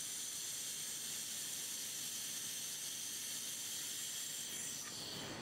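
Laser welding head welding small wire coil springs to a steel plate: a steady high hiss of the weld and its gas flow, which cuts off about five seconds in.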